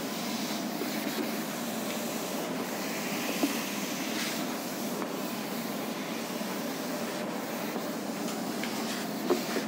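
Handheld whiteboard eraser rubbing across a whiteboard in repeated wiping strokes, with two short sharp knocks, one about a third of the way in and one near the end.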